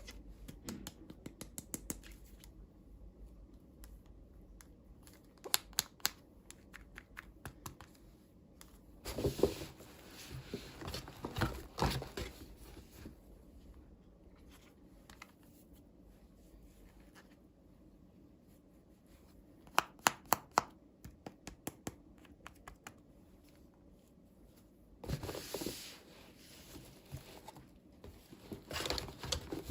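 Hands opening toy packaging and handling small plastic toy parts: bursts of crinkling and tearing with runs of sharp plastic clicks, the loudest clicks a quick run of four or five about two-thirds of the way through.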